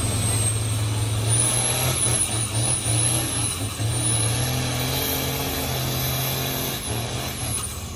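Farm tractor's diesel engine running flat out under load, pulling a weight-transfer sled down the track, with a steady low engine note and a high whine that wavers above it. The sound fades off near the end as the pull finishes.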